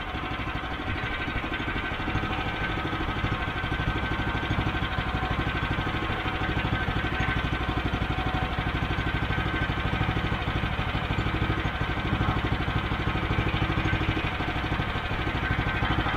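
Gas engine of a Woodland Mills 122 portable bandsaw mill idling steadily while it warms up just after starting.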